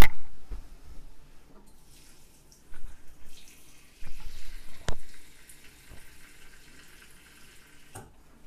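A kitchen tap running into a blender cup as it is filled with water, faint and distant, after a loud handling bump at the start. A single sharp knock comes about five seconds in.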